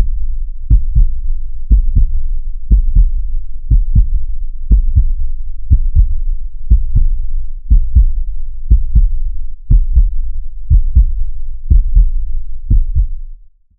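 Heartbeat sound effect: low, muffled double thumps (lub-dub) repeating steadily about once a second, about 60 beats a minute, fading out near the end.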